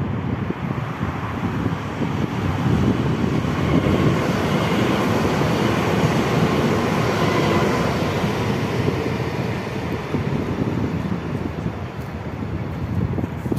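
Regional electric multiple unit passing over a level crossing: a steady rush of wheels on the rails, loudest in the middle and easing off near the end.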